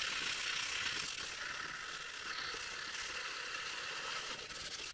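Steady scratchy hiss of abrasive rubbing on the pressed-steel toy airplane body during fine-grit sanding and polishing work, cutting off abruptly near the end.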